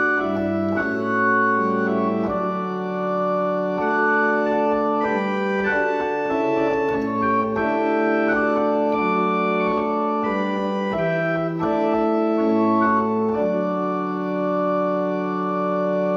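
Church organ playing a hymn in sustained, smoothly changing chords, closing on a long held chord in the last few seconds.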